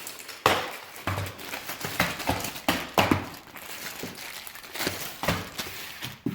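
Packaging of a paper window shade being unwrapped by hand, crinkling and rustling in short irregular crackles.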